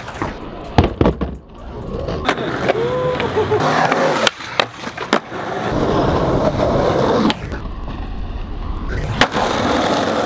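Skateboard on concrete: sharp knocks of the board hitting and grinding a concrete ledge in the first second or so and again around the middle, with the steady rumble of urethane wheels rolling on concrete in the second half.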